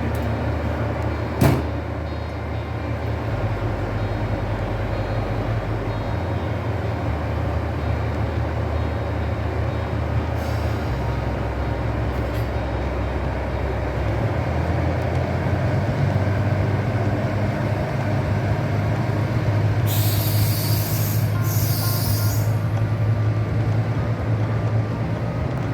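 KiHa 85 series diesel railcar running: a steady low engine drone that shifts pitch in steps several times. There is a sharp click about a second and a half in, and two short hisses of air near the end.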